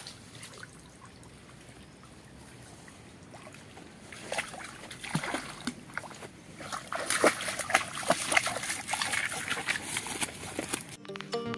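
A dog wading and splashing through shallow water, faint at first and louder and busier from about halfway through. Music comes in right at the end.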